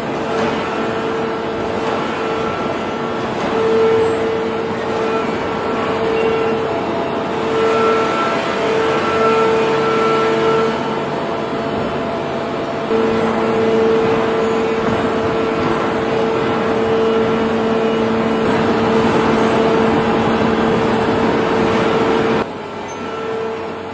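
Steady industrial drone of a large hydraulic forging press and its pump units, a constant hum over machine noise with no hammer blows. The sound jumps abruptly about halfway and turns quieter near the end.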